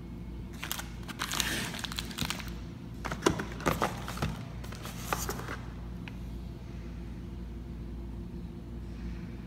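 Cardboard toy boxes being handled: rustling, scraping and several sharp taps over the first five or so seconds, then only a low steady hum.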